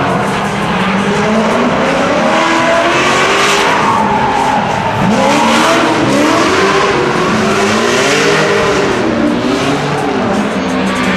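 Drift car engine revving up and down in quick repeated swings as the car slides through a corner, with tyres squealing and skidding.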